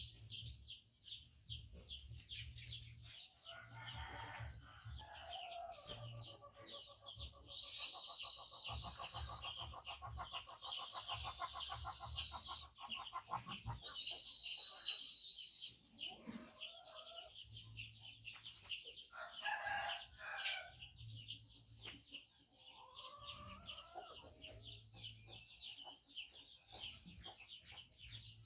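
Chickens in the background: roosters crowing and hens clucking, over a continuous high-pitched chirping. A long pitched call runs from about six seconds in to about thirteen, and more crows come about two-thirds of the way through.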